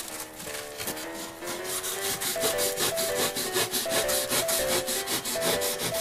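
A hand tool scraping rigid foam insulation from a refrigerator door, in quick repeated strokes of about four a second from about a second and a half in. Background music with a simple stepping melody plays throughout.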